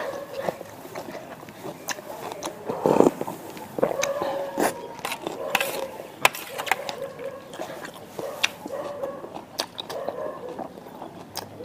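Eating sounds: a metal spoon clinking and scraping against a stainless steel tray of spicy broth, with slurping of the broth from the spoon. There are many sharp clicks and a louder slurp about three seconds in.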